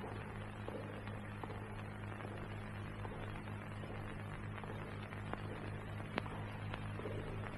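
Steady low mains-type hum with faint hiss and a few scattered soft clicks, one slightly louder about six seconds in: the background noise of an old film soundtrack during a quiet passage.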